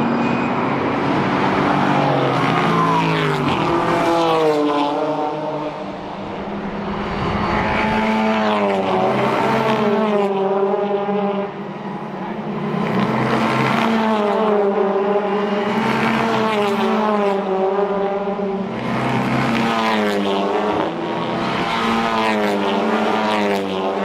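Several race cars accelerating past one after another, their engine notes overlapping. Each note climbs and drops back with every upshift, with brief lulls about six and eleven seconds in.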